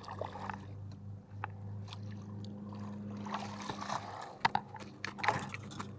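A hooked fish splashing at the water's surface while a landing net is dipped in and scooped under it, with a few sharp splashes and knocks near the end. A steady low hum runs underneath.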